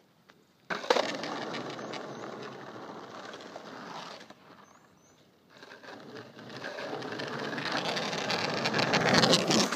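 Skateboard wheels rolling on rough asphalt: a sharp clack about a second in, then a rumble that fades away, and after a short lull a rumble that grows steadily louder as the board comes back, ending in sharp clacks during a backside feeble attempt on a flat rail.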